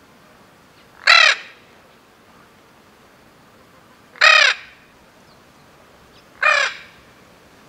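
Spix's macaw calling: three short, loud calls, each about a third of a second long and arching slightly up then down in pitch, spaced two to three seconds apart.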